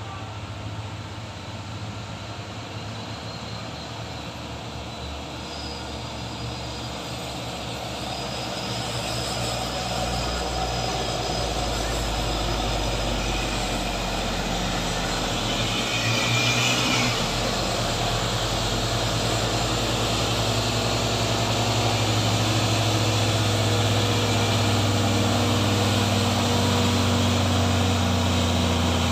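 Diesel engines of two Hino heavy trucks straining up a steep grade, one towing the other on a cable. The steady low engine drone grows louder as they come closer, with a short hiss about halfway through.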